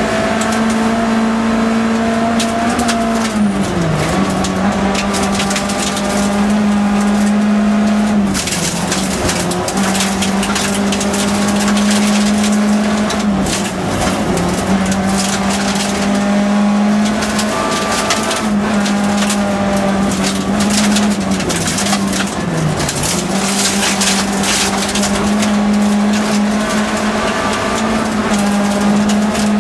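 Nissan Primera group F rally car's engine held at high revs from inside the cabin, its pitch dipping briefly several times as the driver lifts and shifts. Gravel hisses and rattles against the underbody throughout.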